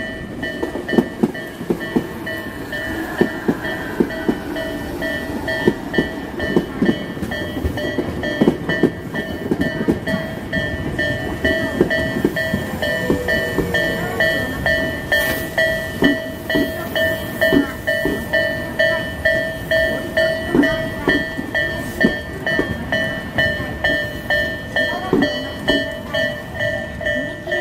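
Japanese railway level-crossing alarm ringing its repeating electronic clang in a steady rhythm, over a train passing with wheels clacking on the rails.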